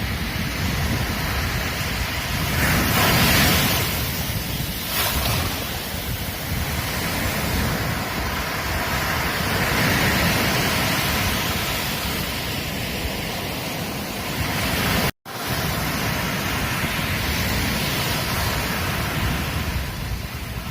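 Ocean surf washing onto a beach in a continuous rush, with a louder wave breaking about three seconds in and smaller swells after. The sound cuts out for an instant about fifteen seconds in.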